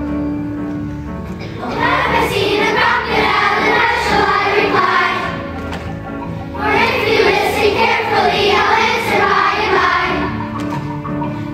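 Children's chorus singing over instrumental accompaniment. The voices come in about two seconds in, ease off briefly around the middle, and come back in for a second phrase.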